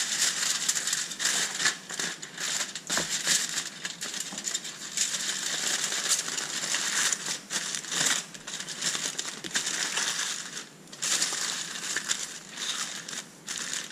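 Aluminium foil being crumpled and pressed down by hand as it is folded around a fish head on a baking tray: continuous crinkling and crackling, with short lulls about three-quarters through and again near the end.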